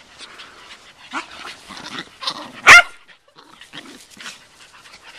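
A puppy gives one sharp, loud bark about halfway through, amid quieter scattered noises of puppies playing.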